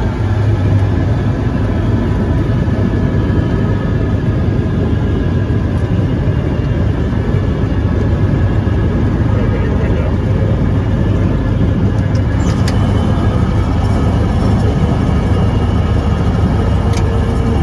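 Single-engine light aircraft's piston engine and propeller running, heard inside the cockpit as the plane rolls along the runway after touchdown: a steady low drone under constant rushing noise.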